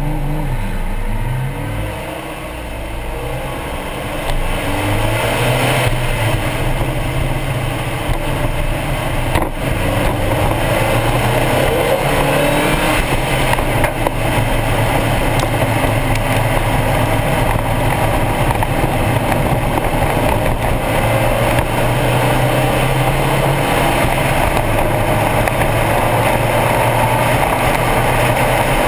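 Stock Mazda Miata's four-cylinder engine, quieter for the first few seconds and then accelerating hard about four seconds in. After a brief break at about nine seconds it runs steadily at high revs.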